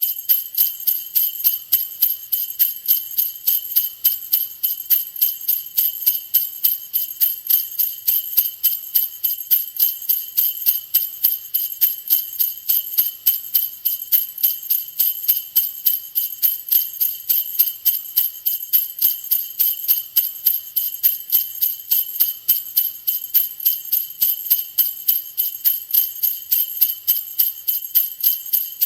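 Sleigh bells shaken in a steady, even rhythm, with bright, high jingling on every stroke.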